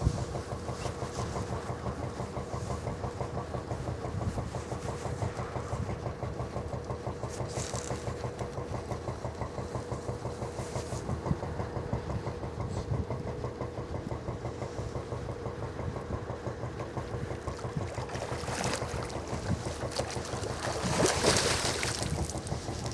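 An engine idling steadily with a regular pulse of several beats a second. Near the end, a splash as the hooked pike thrashes at the surface near the bank.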